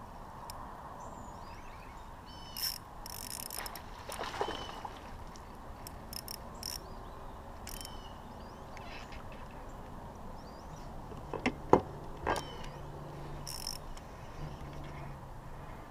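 Birds chirping in riverside trees over a steady outdoor background, with scattered light clicks and a pair of sharp knocks about three-quarters of the way through. A low steady hum comes in over the last few seconds.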